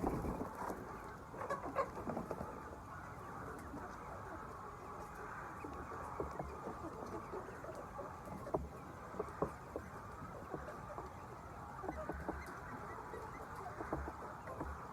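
A flock of hens clucking together in a steady din, with short louder clucks scattered through it.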